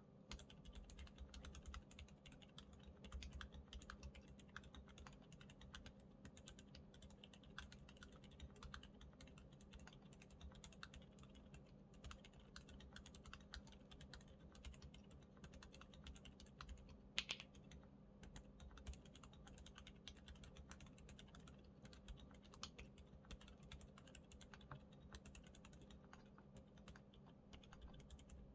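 Steady, quiet typing on a Monsgeek M1 mechanical keyboard fitted with Outemu Peach linear switches, Cherry-profile dye-sub keycaps and a polycarbonate plate. Irregular keystroke clacks run throughout, with one sharper, louder clack about seventeen seconds in.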